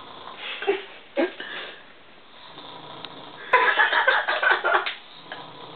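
A sleeping woman snoring: two short snorting breaths in the first two seconds, then one long, loud, rough snore about three and a half seconds in.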